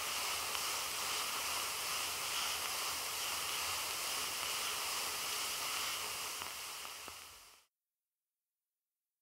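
Steady hiss and crackle of wax cylinder surface noise playing on an Edison-style phonograph, fading out about seven and a half seconds in.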